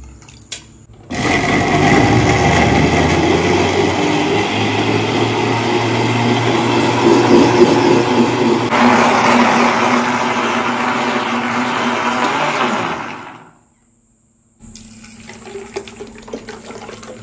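Electric blender running for about twelve seconds, blending mango pieces with milk into mango juice, with a steady motor hum whose tone changes partway through. It cuts off, and after a short pause the thick juice is poured from the blender jar into a jug.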